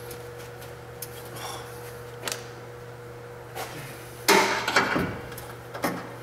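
Knocks and clatter of metal tools and parts being handled over a steady low hum, with a louder stretch of clatter about four seconds in.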